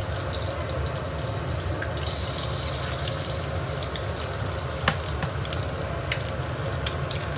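Food sizzling steadily in a hot wok, with scattered light clicks of a metal spatula against the pan and a sharper one about five seconds in.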